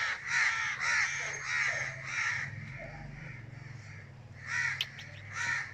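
Crow cawing: a quick run of about six caws in the first half, then two more near the end, over a steady low hum.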